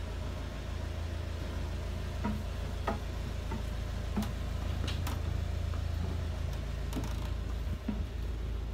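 Boat's inboard diesel engine idling with a steady low rumble, just after a glow-plug start. Over it come scattered knocks and clicks of footsteps on the boat's steps and deck.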